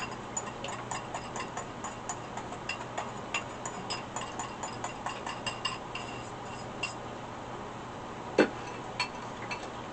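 Rapid small clicks and clinks, several a second, from a mixing bowl and utensil as hoisin sauce is poured and scraped out over meatballs in a crock pot. A sharp knock a little after eight seconds in, then a lighter one.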